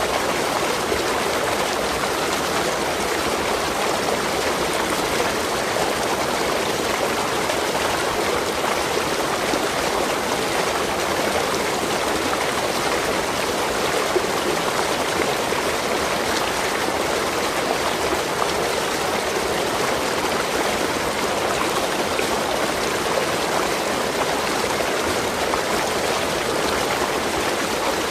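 Waterfall: water falling and rushing in a steady, unbroken roar of splashing.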